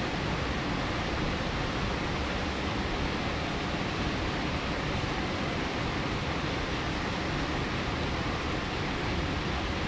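Heavy downpour with strong wind in a thunderstorm: a steady rushing hiss.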